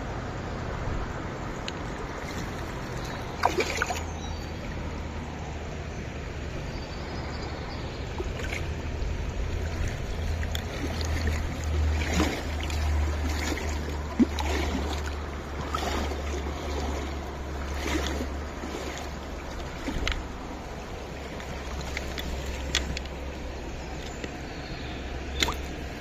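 Shallow stream water running and sloshing while a hooked brown trout is played to the bank, with a low rumble for much of the time and scattered sharp clicks and knocks.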